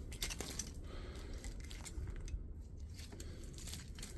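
Faint scattered clicks and rustling of plastic parts and wire being handled while a fax machine is taken apart for scrap.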